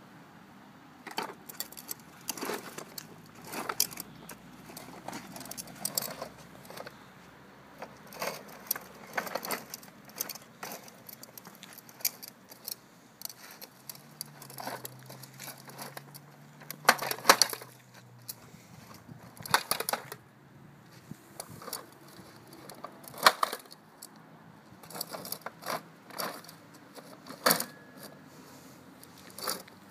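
Plastic push-along walker toy clattering and clicking in irregular bursts as its plastic wheels are pushed over asphalt.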